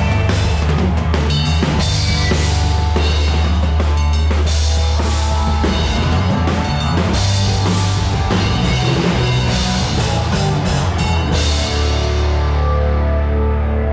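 Live rock band playing through a PA at a sound check: a drum kit with crash cymbals, snare and bass drum over a heavy, steady bass line. About twelve seconds in, the drums and cymbals stop, leaving held bass and guitar notes.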